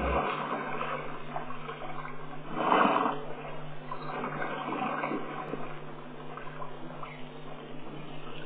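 Water splashing and sloshing as a baby elephant plays in a shallow waterhole, with a louder splash about three seconds in. A steady low hum runs underneath.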